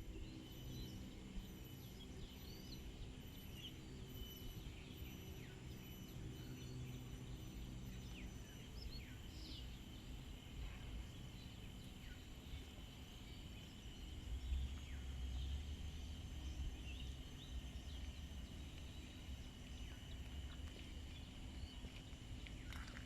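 Outdoor nature ambience: scattered short bird chirps over a steady high insect drone, with a low rumble that swells for a few seconds past the middle.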